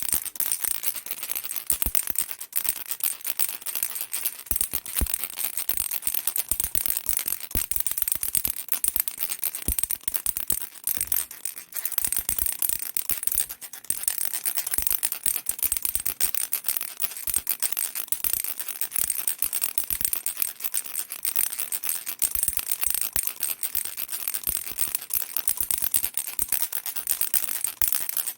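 Baby rattle shaken continuously, a dense, fast clatter of small beads with a bright, clinking edge, broken by a couple of brief pauses near the middle.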